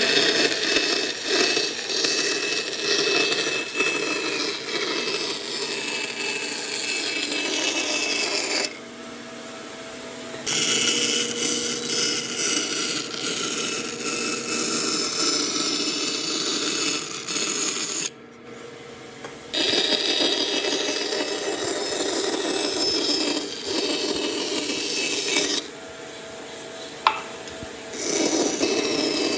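Power tools working wood, a steady rubbing, rasping sound over a motor hum. It switches abruptly several times, dropping quieter for a second or two about nine, eighteen and twenty-six seconds in, with a single sharp click about twenty-seven seconds in.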